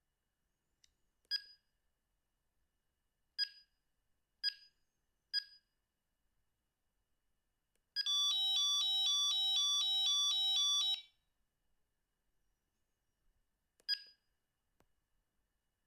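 Sony CM-H777 mobile phone beeping as its keys are pressed, four short beeps spaced a second or two apart. About eight seconds in, a ringtone plays for about three seconds as a fast repeating pattern of electronic tones, then one more key beep near the end.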